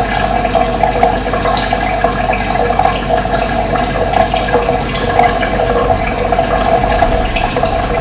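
Steady rush of running water, with a few short, faint high bird chirps over it.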